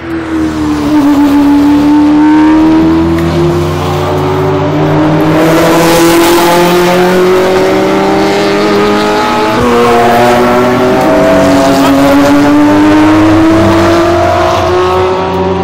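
Racing car engines accelerating hard past at full throttle. The engine note climbs steadily, drops about nine and a half seconds in, then climbs again.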